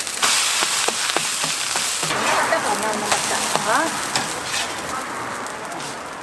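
Food sizzling as it fries in hot oil, a steady hiss broken by scattered short clicks of a utensil.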